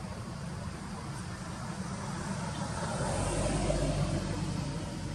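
Steady low rumble of outdoor background noise, growing a little louder about three seconds in.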